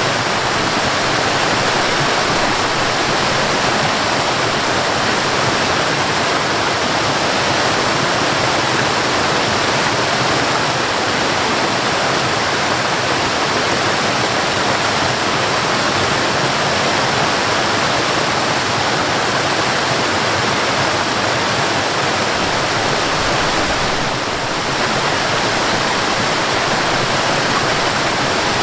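Waterfall: a steady, even rush of falling water that holds a constant level throughout.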